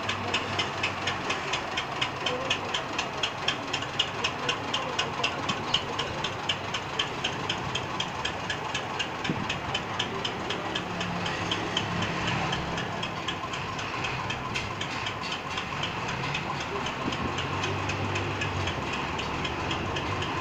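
Massey Ferguson tractor's diesel engine running with a regular puffing at about four beats a second. After about six seconds the beats blur into a smoother, steadier running sound as the tractor pulls away.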